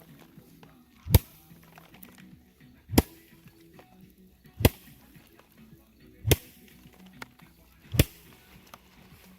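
Five sharp blows at an even pace, about one every second and a half to two seconds, over a quiet background.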